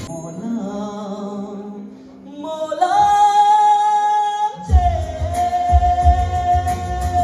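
A song with a singer holding one long high note over sustained accompaniment; the bass and drums come back in about two thirds of the way through.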